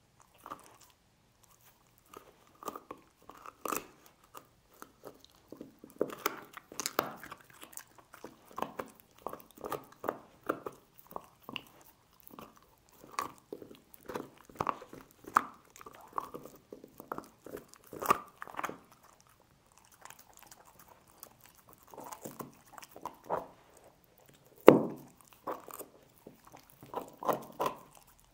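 Dog gnawing and crunching on a pork bone, in bursts of chewing and cracking with short pauses between, and one loud sharp crack near the end.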